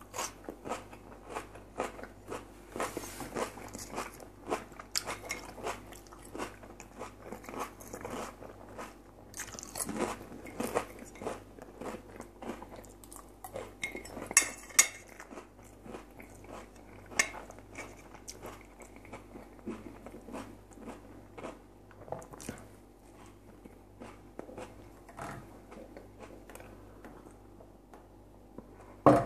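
Close-miked chewing and biting of crispy pan-fried potatoes: a steady run of wet mouth clicks and crunches. Near the end it quietens as he sips pickle brine from a glass.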